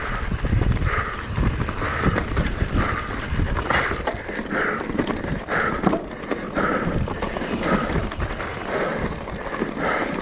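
Wind buffeting the action camera's microphone while a mountain bike rolls over a rocky, gravelly trail, with its tyres and frame rattling. A hiss recurs about once a second throughout.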